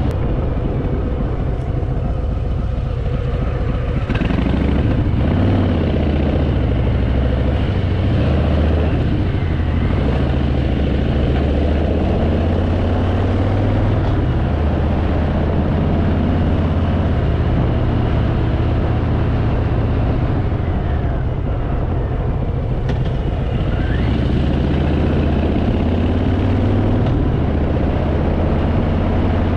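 Harley-Davidson Fat Boy's V-twin engine running while riding, its low note shifting with throttle and gear changes, with wind rushing over the microphone.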